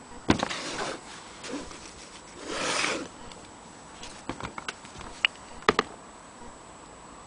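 Handling noises: a sharp knock, a brief rubbing sweep, then a run of light clicks and taps.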